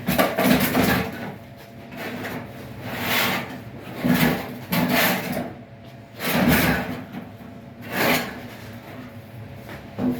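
A run of short scraping and rustling noises, about seven in all, each lasting under a second, from work on the dryer and its vent hose.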